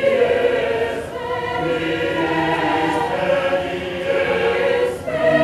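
Mixed choir of women and men singing in harmony: held chords broken by two short breaks between phrases, about a second in and near the end.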